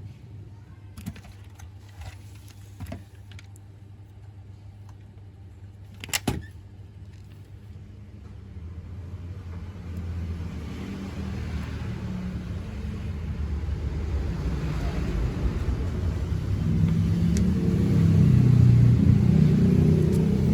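A low vehicle-engine rumble that grows steadily louder through the second half. A few sharp clicks and taps in the first seven seconds, the loudest about six seconds in.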